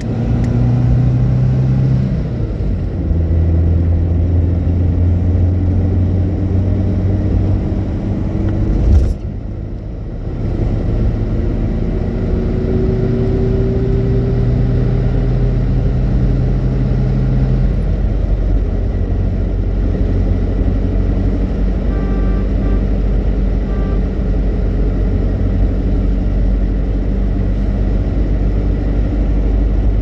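Car engine and road noise heard from inside a moving car: a steady low engine hum whose pitch steps a few times, with a brief sharp noise about nine seconds in followed by a short dip in level.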